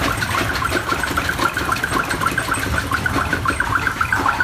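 Primeval Whirl coaster machinery clattering: a fast, even run of clicks with short squealing tones over a low rumble.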